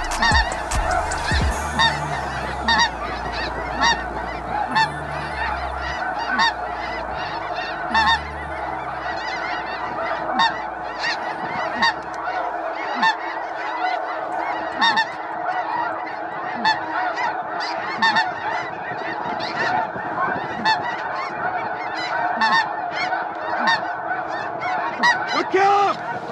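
A large flock of snow geese calling overhead: a dense, unbroken chorus of many overlapping honks.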